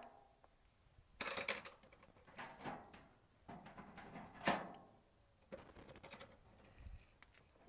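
Folded metal tri-fold motorcycle-ramp panels rattling and clanking in several short bursts as they are handled and shifted, with one sharper knock about four and a half seconds in.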